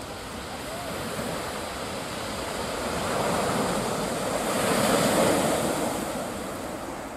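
Sea waves breaking on the beach, one wave building to its loudest about five seconds in and then washing back down.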